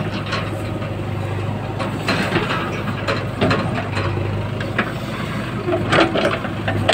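Diesel engine of a JCB 3DX backhoe loader running steadily under load, with the tractor idling alongside. Metal clanks and rattles come from the digging bucket and boom as soil is scooped and dumped into the trolley.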